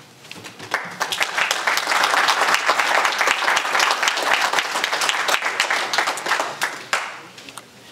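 Audience applauding. The clapping builds up over the first second or two and dies away near the end.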